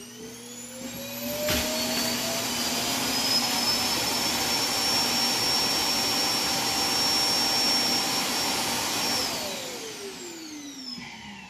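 Roomba's self-emptying dock running its suction motor: it spins up with a rising whine, runs with a loud steady rush of air, then winds down with a falling whine near the end. It sounds like a jet airplane taking off.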